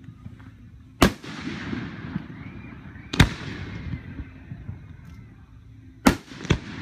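Aerial firework shells bursting: four sharp bangs, about one second in, about three seconds in, and two close together near the end, each trailing off in a rumbling echo.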